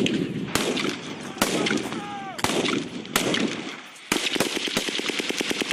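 Live gunfire: four single shots roughly a second apart, then a little after four seconds in a machine gun opens up in a long rapid burst. A short shout breaks in about two seconds in.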